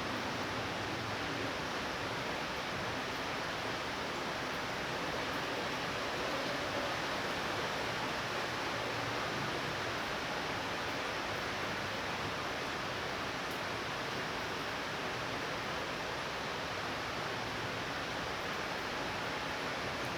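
Light rain falling steadily, an even hiss.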